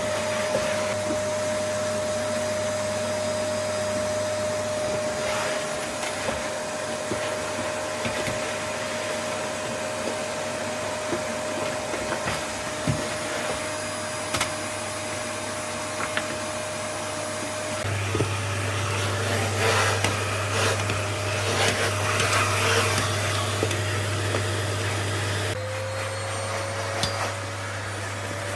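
Paper-bag vacuum cleaner running with a steady motor whine. The sound changes about eighteen seconds in and again near the end, with a few light knocks in between.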